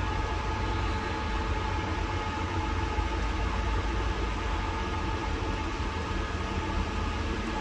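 Steady low rumble and noise with a constant faint hum.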